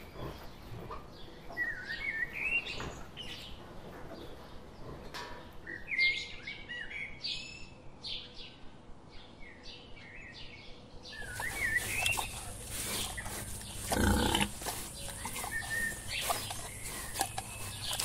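Small birds chirping in short rising and falling calls. About eleven seconds in the sound changes to wild boar piglets grunting as they scuffle, loudest about fourteen seconds in, with birds still chirping.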